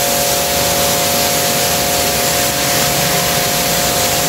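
Inc-co 1500-watt electric pressure washer running with the gun's trigger held: a steady hiss of the high-pressure water jet spraying across floor tiles, over a steady whine from the pump motor.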